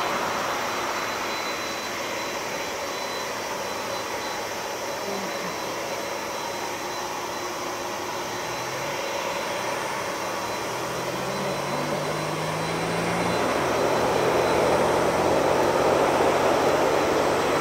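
Boeing 747-400 freighter's four jet engines running as it rolls on the runway for takeoff, a steady rushing roar that grows louder over the last few seconds.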